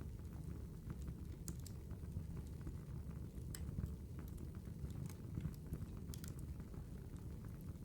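Campfire burning with a steady low rumble and irregular sharp crackles and pops.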